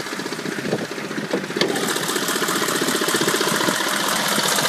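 GM 6.5-litre turbo-diesel V8 idling with a steady diesel clatter, growing louder over the few seconds. A single sharp click comes about a second and a half in.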